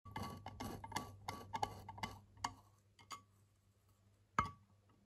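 Light metallic clicks and ticks, about two or three a second, from the cast-iron gear housing of a hand-cranked drill being handled and seated, fading after about three seconds. Near the end comes a single louder metal click as a screwdriver tip meets a brass screw in the housing.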